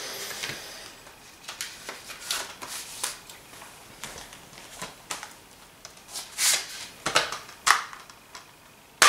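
A plastic disc case and its cardboard slipcover being handled: a string of light clicks, taps and scrapes at irregular intervals, a few sharper ones in the second half.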